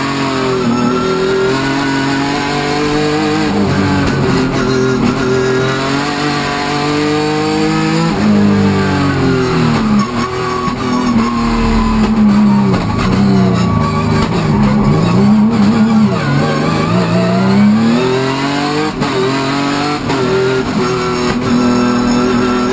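Hyundai Genesis Coupe hill-climb race car's engine heard from inside the cockpit, its revs rising and falling repeatedly as it is driven hard through corners and gear changes.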